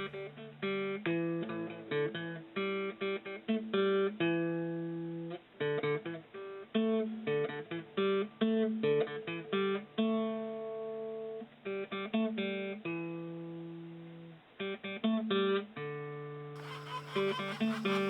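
Acoustic guitar music: single plucked notes and short runs, some left ringing and fading. Near the end the sound turns fuller and brighter as the guitar plays on.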